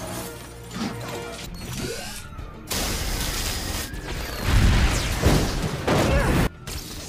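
Action-film sound mix: music under a run of crashes and explosion booms. The heaviest, bass-laden blasts come a few seconds in, and the sound cuts off suddenly near the end.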